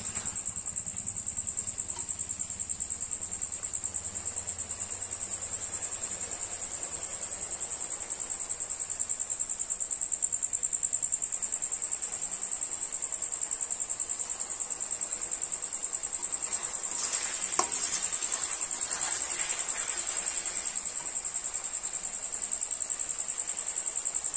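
A cricket trilling without a break, one high, fast-pulsing note. Under it, a spoon stirring and scraping masala frying in an aluminium kadai, with a few louder scrapes past the middle.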